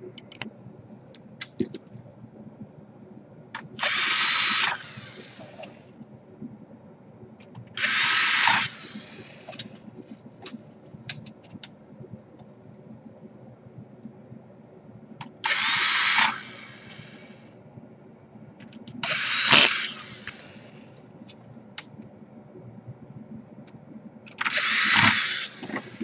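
Cordless electric screwdriver driving screws into a laptop's palmrest, in five short runs of about a second each, with light clicks of handling between them.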